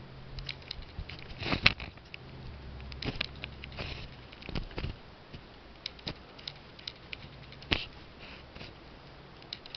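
Handling noise of a camera being set up and positioned: scattered light clicks, taps and rustles, with a louder knock a little under two seconds in.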